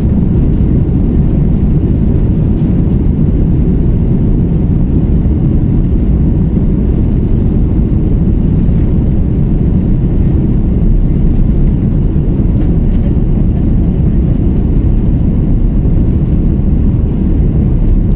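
Airbus A330-300 jet engines at takeoff thrust heard inside the passenger cabin: a loud, steady, deep rumble.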